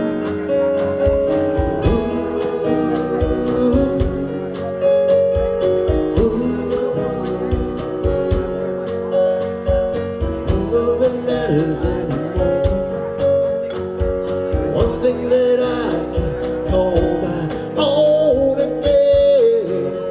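Live band playing an instrumental break: drums keeping a steady beat under sustained chords and guitar, with a lead instrument bending notes from about ten seconds in.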